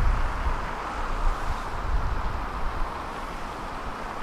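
Steady hum of road traffic, with a low rumble that is strongest at the start as a box truck drives by and then eases off.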